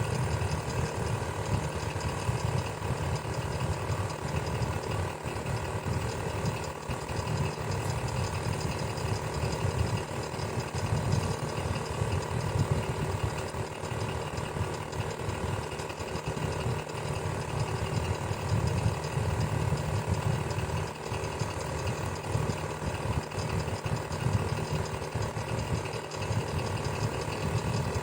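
Electric fan running steadily: a low motor hum that flutters rapidly, with faint steady whining tones above it.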